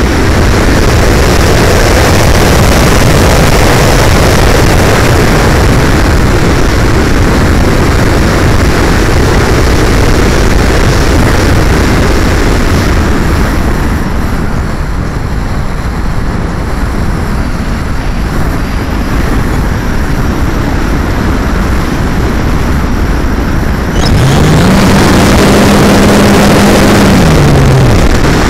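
Rush of air over a fast-flying electric RC hotliner glider and its microphone, heavy at first and easing somewhat about halfway. About 24 s in, the electric motor and propeller come on with a low hum that rises, holds steady for a few seconds, then falls away near the end.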